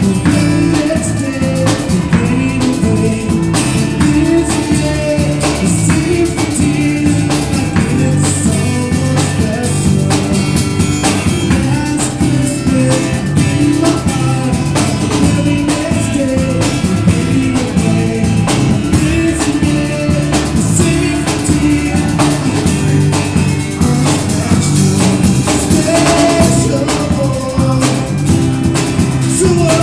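Live band playing a rock song: a man singing with acoustic guitar, backed by electric bass and a drum kit keeping a steady beat.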